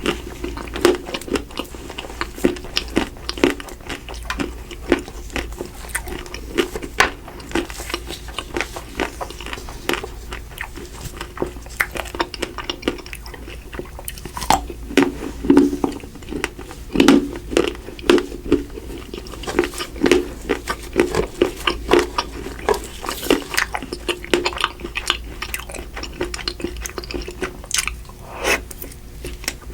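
Close-miked eating: a person biting, crunching and chewing Magnum double pistachio ice cream, with many quick crackling crunches throughout.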